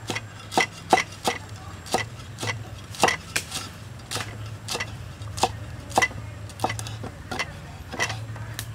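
Cleaver chopping fresh red chillies on a round wooden chopping block: sharp knocks of the blade striking the wood, about two a second, unevenly spaced.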